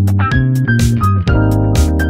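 Background music: keyboard and bass over a steady beat.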